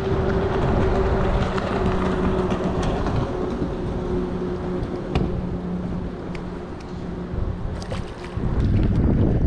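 Wind buffeting the microphone over open water, with the steady hum of a passing motorboat's engine and a few faint clicks. The wind gets louder near the end.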